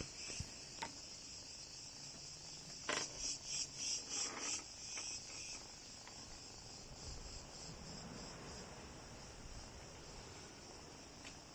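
Steady high-pitched chirring of insects, with a run of louder, rapid pulses about three seconds in that fades out by about four and a half seconds. A couple of faint clicks sound in the first second.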